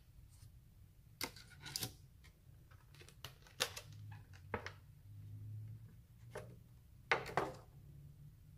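Clear plastic sandwich packaging crinkling and crackling as it is pried open and peeled off the sandwich, in several short crackles, loudest about three and a half and seven seconds in.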